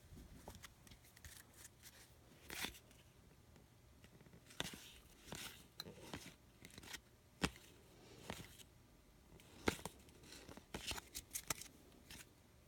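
Basketball trading cards being handled and flipped through one by one: faint, scattered short swishes and scrapes of cards sliding against each other.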